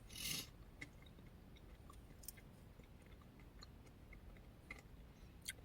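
Quiet chewing of a mouthful of yogurt and granola parfait: faint, scattered small mouth clicks, after a brief breath at the start.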